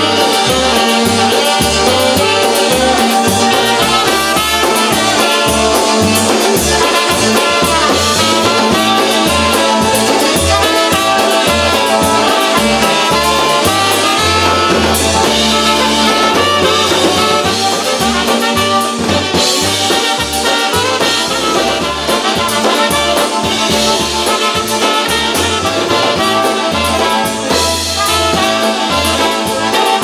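Live dance band playing an instrumental passage: two saxophones and a trumpet carry the melody over accordion, drums and a pulsing bass line, with no singing.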